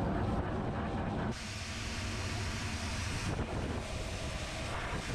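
Pet grooming dryer blowing air steadily through its hose, a constant rushing hiss that turns brighter and hissier about a second in.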